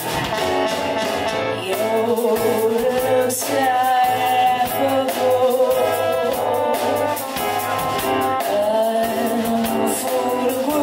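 A woman singing a sultry, jazzy ballad live, with band accompaniment under her voice.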